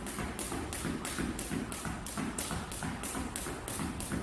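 A speed jump rope slapping the floor about three times a second in a steady rhythm, with soft thuds of the jumper's feet landing.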